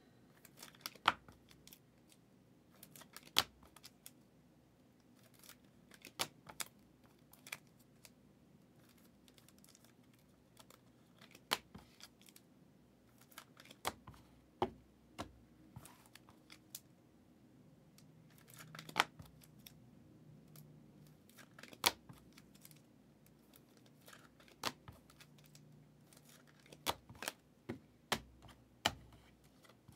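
Trading cards being handled by hand: irregular sharp clicks and taps in small clusters with short pauses between.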